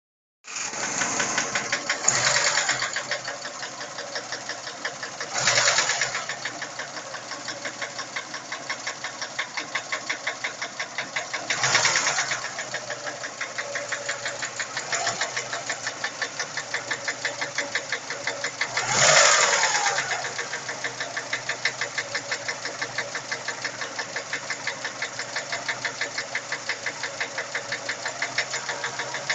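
Vehicle engine idling with a steady, rhythmic knock, about three a second. The throttle is blipped four times and the knock quickens with the revs.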